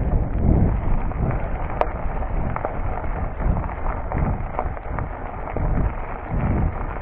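Cube Stereo full-suspension mountain bike rolling over a gravel track: tyre crunch with small clicks and rattles from the bike, and wind buffeting the action camera's microphone in low gusts.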